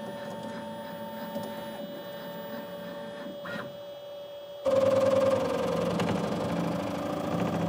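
Bambu Lab P1S 3D printer running its self-test: a steady motor and fan whine, then, about two-thirds of the way through, a louder hum of several tones starts suddenly as the printer's motors begin the next test step.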